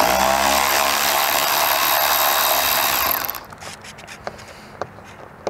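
Power driver spinning a T20 Torx socket on a long extension to back out a bolt: it spins up at once, runs steadily for about three seconds, then stops, followed by a few light clicks.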